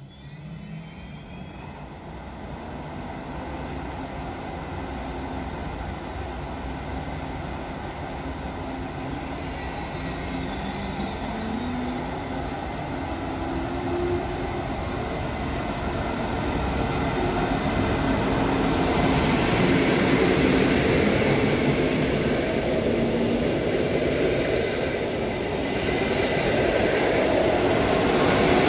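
ICE S high-speed test train pulling away and running toward the listener, its electric drive whining upward in pitch as it gathers speed. The rumble of the train grows steadily louder until the power car passes close by near the end.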